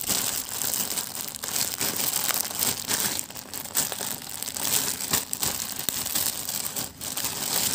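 Thin clear plastic bag crinkling and rustling as hands open it and pull a folded shirt out, with a short break shortly before the end.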